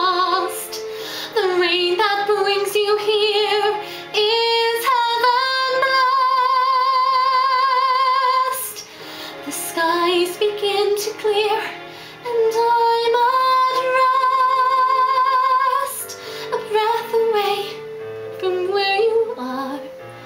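A woman singing a slow ballad, with long held notes and a wide vibrato and short breaks between phrases.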